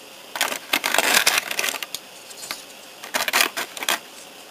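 Small plastic X-wing toy parts and their clear plastic blister tray being handled: crinkling and clicking in two bouts, one lasting over a second and another about three seconds in.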